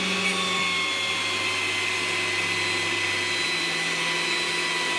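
Thickness planer running steadily, its motor giving a high whine over a loud, even rushing noise.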